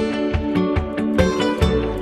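Background music: a plucked-string instrumental with a steady beat.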